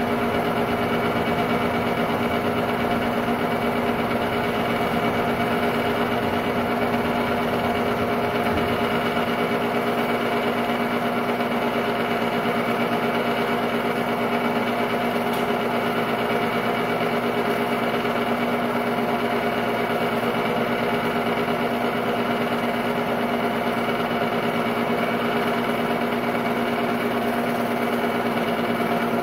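Technicolor 810 8mm film-loop projector running: a steady mechanical whirr of its motor and film transport, with a constant hum.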